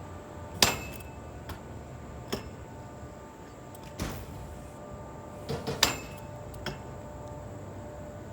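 Several sharp clicks and knocks, the loudest about half a second in and a quick group of two or three near the six-second mark, over a steady low background hum.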